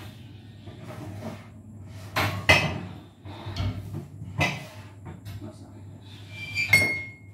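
Metal baking tray and cooling rack clattering on a kitchen counter as cookies are moved to cool: a few separate knocks and clinks, the last one near the end ringing briefly like struck metal.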